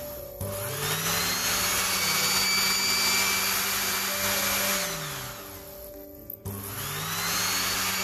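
Cornell Joven water heater's built-in electric water pump motor switching on as a magnet is held to its reed switch: it spins up with a rising whine, runs steadily, winds down about five seconds in, then starts and spins up again about a second later. It shows the reed switch itself is working.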